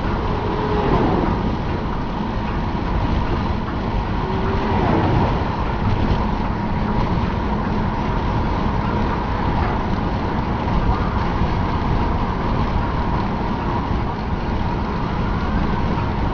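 Steady wind rush and road noise of a moving car, heard from inside the cabin with a side window open.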